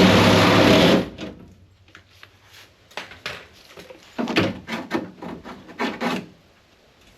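Loud scraping and rubbing that stops about a second in, then a series of shorter scrapes and knocks from about three to six seconds in.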